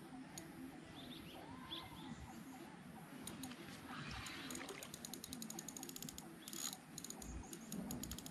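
Fishing reel ratchet clicking while an arapaima is played on the rod: scattered ticks, then a quick run of clicks about five and a half seconds in that speeds up. Faint bird chirps behind.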